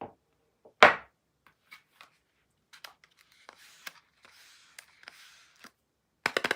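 Soap packaging being handled: a click, a loud sharp knock about a second in, scattered small taps and faint paper or plastic wrapper crinkling. Near the end a fast run of crisp strokes, about ten a second, sets in loudly.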